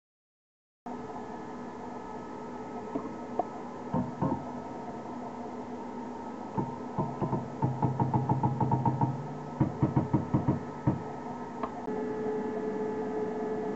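CNC router's stepper motors jogging the cutter in 0.1 mm steps while it is zeroed: scattered knocks, then rapid runs of short clicking buzzes, about five a second, densest in the middle, over a steady electrical hum. Starts after about a second of silence.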